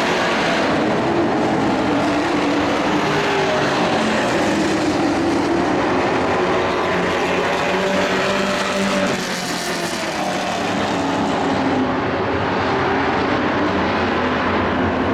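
Dirt-track race trucks' engines running hard at racing speed, their engine notes rising and falling as the trucks go through the turns and past. The sound dips slightly about nine seconds in.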